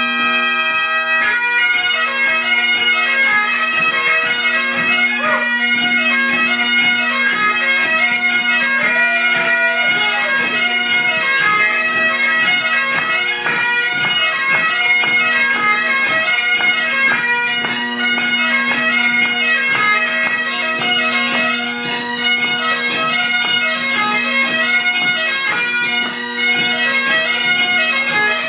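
Three Great Highland bagpipes playing a tune in unison over their steady, unbroken drone.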